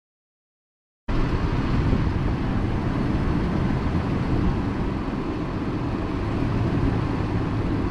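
Steady vehicle driving noise, an engine and rumble heavy in the low end, cutting in abruptly about a second in after a silent gap.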